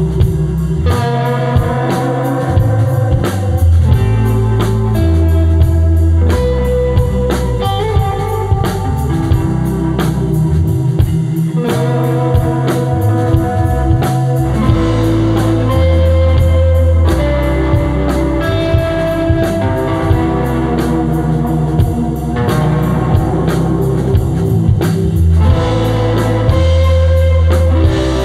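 Rock band playing live with no singing: a guitar melody over held bass notes and a steady drum-kit beat.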